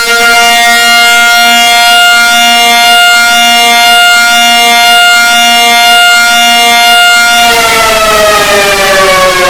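Civil defense siren sounding loudly. It holds one steady pitch for about seven seconds, then starts to wind down in pitch near the end.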